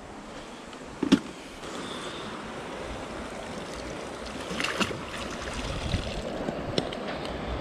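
Steady rush of flowing water, with a sharp knock about a second in and a few light clicks near the middle.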